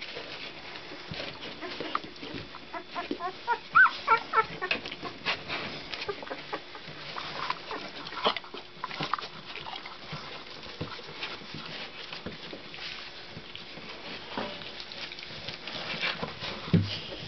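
Two-week-old Labrador puppies whimpering and squeaking in short high calls, a quick run of them about four seconds in and a few more a few seconds later, over the scuffling of the litter crawling about the whelping box. A low bump near the end.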